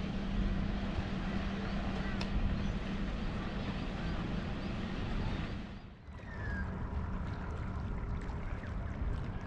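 A steady low motor hum under a noisy wash, dipping out briefly about six seconds in before coming back.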